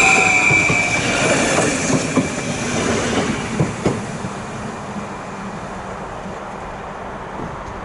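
Arriva Stadler FLIRT electric multiple-unit train passing close by, with a high whine that falls slightly in pitch and fades over the first couple of seconds. Several sharp wheel clicks over rail joints follow, then the running noise dies down as the train draws away into the station.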